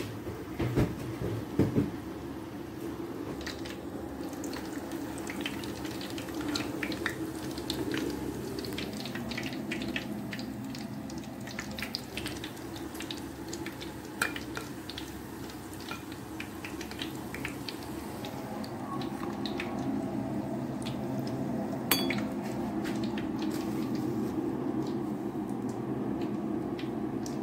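Potato-and-beef balls deep-frying in a pot of oil: a steady crackle with many small pops, and a metal slotted spoon clinking against the pot, with a few louder knocks in the first two seconds.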